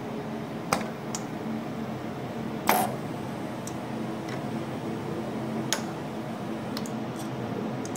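Festo training-station production line running: a steady hum from the conveyor drives, with about ten sharp clicks and knocks from the pneumatic cylinders and valves at irregular intervals. The loudest knock comes about three seconds in.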